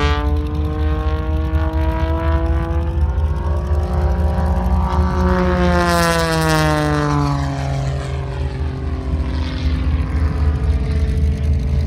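Aerobatic biplane's piston engine and propeller running at high power through a low pass: the pitch drops as it sweeps past about six seconds in, then the engine drones on as the plane climbs away.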